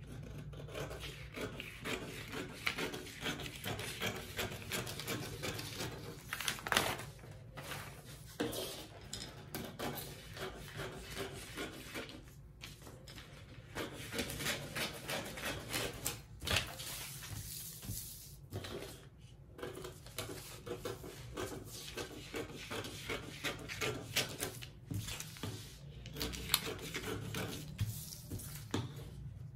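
Scissors cutting through pattern paper, in runs of snips with a few short pauses, the paper rustling as it is held and moved.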